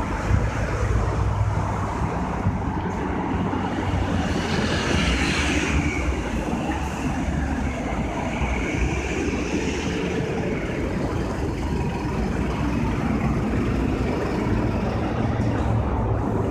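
City street traffic: steady road noise with a low rumble of engines, and vehicles passing, the loudest pass swelling and fading about four to six seconds in.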